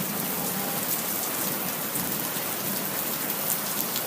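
Steady, dense hiss like heavy rain, with scattered small crackles.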